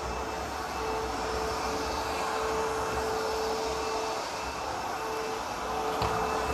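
ProTeam MegaVac vacuum cleaner running steadily: the rush of air under a motor hum that holds one pitch.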